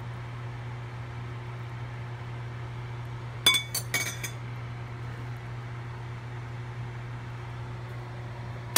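A metal spoon clinks against cookware several times in quick succession about three and a half seconds in, with a brief ring, and once more at the very end. A steady low hum runs underneath.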